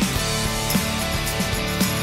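Background music with a steady beat: sustained instrumental tones over regular drum hits.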